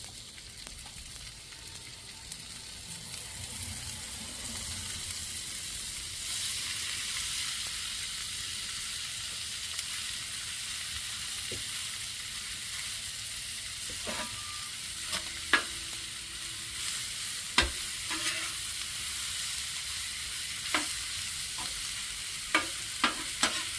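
Sliced peppers, onions and mushrooms sautéing in butter and olive oil in a pan, with a steady sizzle that grows a little louder a few seconds in. In the second half a utensil clicks and knocks against the pan several times as the vegetables are stirred.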